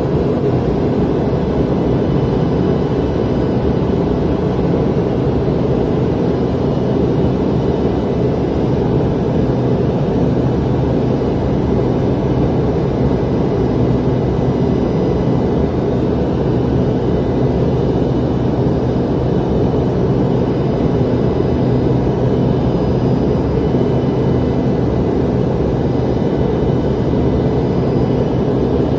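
Steady drone of an airliner in flight heard from inside the cabin: engine and rushing-air noise with a constant low hum.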